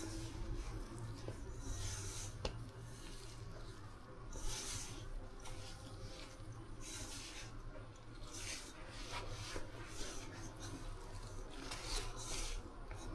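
Hands kneading flour dough, its surface rubbing and pressing in repeated uneven strokes.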